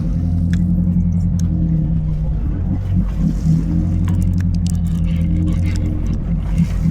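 Fishing boat's engine running with a steady low drone, a few light clicks over it.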